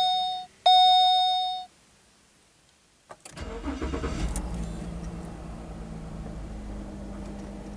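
The 2007 Holden VE Commodore's dash chime sounds twice as the ignition comes on, ending under two seconds in. About three seconds in, the Alloytec V6 cranks briefly and starts, flares up, then settles into a steady idle on its first start after the fresh oil and filter change.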